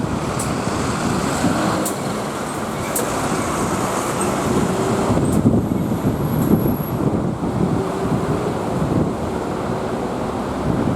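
Steady road traffic noise: cars and trucks driving past on a busy street, with engine hum and tyre noise.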